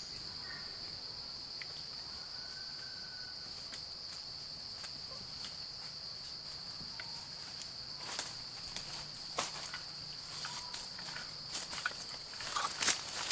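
Steady, high-pitched drone of forest insects. From about eight seconds in, footsteps crunch and crackle through leaf litter and twigs, coming closer and getting louder near the end.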